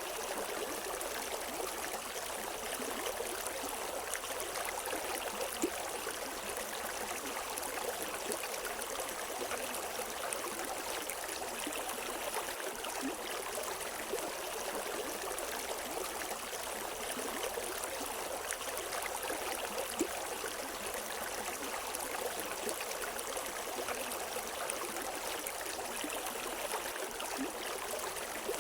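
River water running over rocks, a steady rushing and babbling with small splashes scattered through it.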